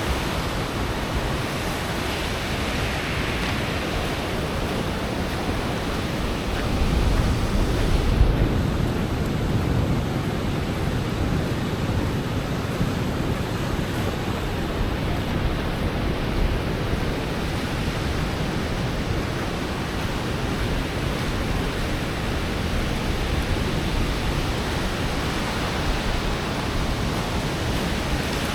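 Ocean surf washing onto a sandy beach: a steady rush of breaking waves, with a louder surge about seven to nine seconds in.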